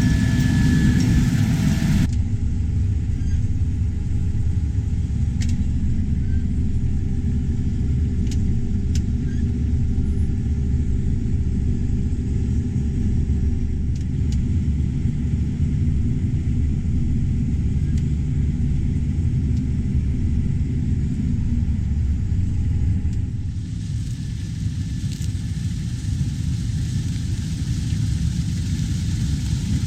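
Farm harvest machinery engines running steadily with a low rumble. The sound changes abruptly about two seconds in and again near the end.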